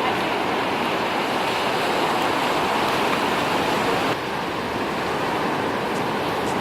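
Ocean surf breaking and washing on a sandy beach: a steady rushing noise that dips slightly about four seconds in.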